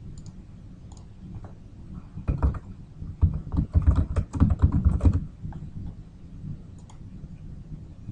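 Typing on a computer keyboard: a short burst of keystrokes about two seconds in, then a quick run of keystrokes lasting about two seconds. A few single clicks come before and after, over a low steady hum.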